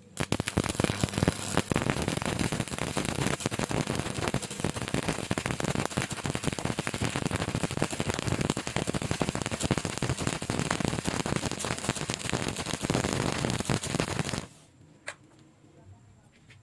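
Stick welding (shielded metal arc) arc crackling steadily for about fourteen seconds, then stopping suddenly as the arc is broken. A single click follows shortly after.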